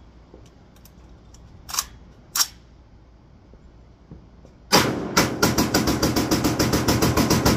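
Two sharp clicks as the rifle is readied, then, a little under five seconds in, a home-built 4.75-inch-barrelled AR-15 in 7.62x39 firing a rapid, evenly spaced string of shots, about eight a second.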